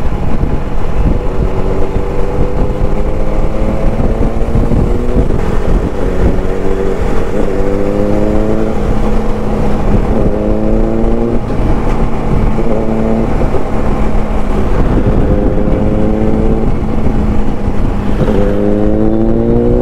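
Motorcycle engine accelerating on the move, its pitch climbing and then dropping back at each gearshift several times over, with wind rumble on the microphone.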